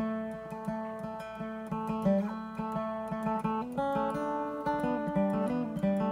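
Martin acoustic guitar played with a pick: single notes and chords picked in a steady melodic pattern, each note ringing on as the next is struck, over a moving bass line.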